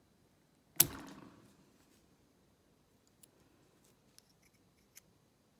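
A single sharp snap of a hand tool against the padlock's steel C-clip just before a second in, dying away over about half a second, then a few faint light clicks as the tool works the clip.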